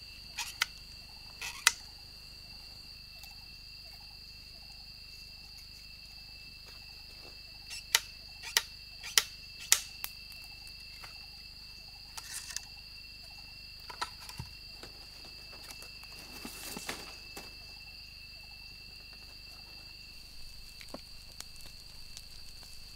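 Forest insects trilling in a steady high drone, over which come sharp clicks and knocks as bamboo tubes are handled. Two clicks come near the start and four evenly spaced, loudest ones about eight to ten seconds in, with lighter taps and rustling later.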